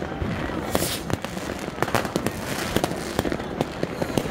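Fireworks and firecrackers going off: an irregular string of sharp bangs and crackles, several a second, some much louder than others.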